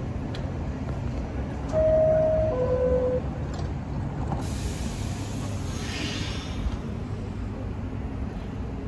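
New York City subway car's two-tone door chime, a higher note then a lower one about two seconds in, over the steady low rumble of a train standing at the platform. A short hiss of air follows a few seconds later.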